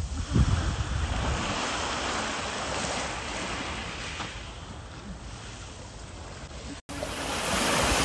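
Small waves washing onto a pebble and shell beach, with wind gusting on the microphone in the first moments. The surf gets louder near the end as a bigger wave breaks.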